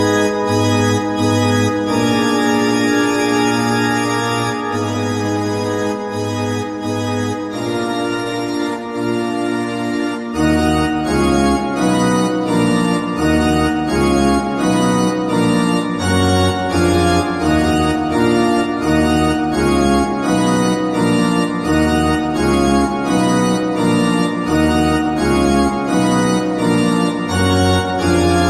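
Instrumental music: sustained organ-like keyboard chords over held bass notes. About ten seconds in, a deeper bass enters and the music takes on a steady pulsing rhythm.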